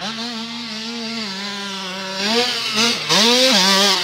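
Dirt bike engine at a steady pitch, then revving up and down a couple of seconds in and held high and louder near the end as the bike runs the motocross track.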